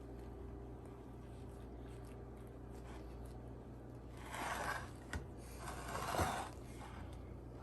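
A kitchen utensil spreading and smoothing a soft cream cheese and whipped topping filling over a pretzel crust in a baking dish: two short scraping strokes, about four and six seconds in, with a light click between them.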